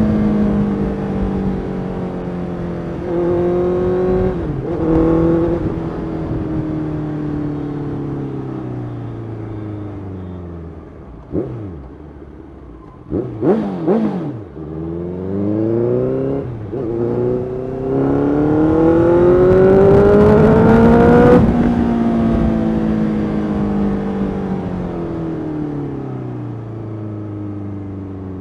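Honda CBR650F's 649 cc inline-four engine slowing down with downshifts for about ten seconds. A few quick rises and falls in pitch come near the middle. It then revs up hard through a gear change to a peak about two-thirds in and winds down again.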